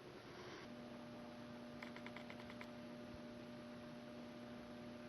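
1989 AC-742 ceiling fan motor running with a faint, steady electrical hum whose pitch shifts lower less than a second in. A quick run of about eight light ticks comes about two seconds in.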